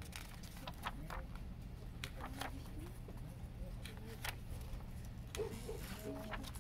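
Paper pages of a CD lyrics booklet being flipped and handled: a run of short crisp rustles and flicks over a steady low hum.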